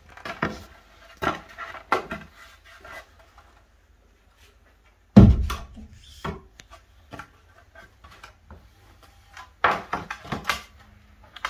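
Wooden boards knocking and rubbing together as the notched halves of a wooden cross are handled and fitted into each other, with one heavy thud about five seconds in and a few more knocks near the end.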